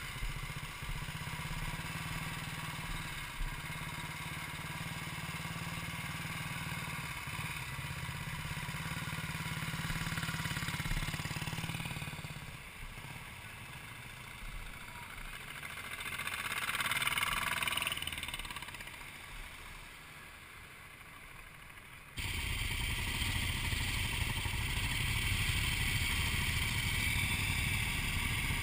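Motorcycle engines idling and pulling away, with one bike swelling past about two-thirds through. About three-quarters through, a louder, steady engine sound starts suddenly and holds to the end.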